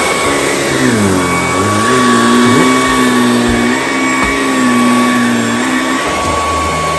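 Vacuum cleaner running at full speed: a steady high-pitched whine over a lower motor hum that dips and wavers in pitch as the load changes.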